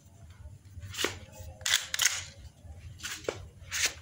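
Airsoft Glock 18 alloy pistol firing single shots, several sharp reports spaced about half a second to a second apart.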